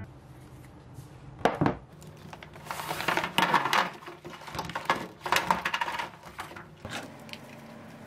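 Kitchen handling sounds on an aluminium baking tray: a couple of sharp knocks, then the scraping and rustling of a reusable baking sheet being slid and laid flat on it.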